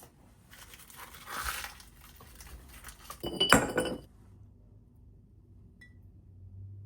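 Ice cubes and a drinking glass clinking while a glass of cold water with ice is made: a rattling shuffle in the first two seconds, then one sharp, ringing clink about three and a half seconds in.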